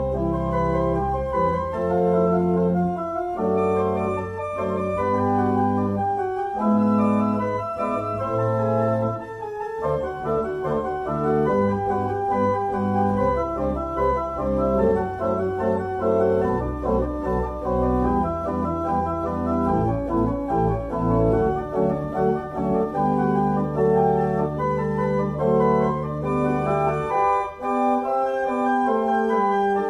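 Small pipe organ playing a solo piece, with held bass notes under moving chords. A stretch of quick, short notes runs through the middle, and the low notes drop away near the end.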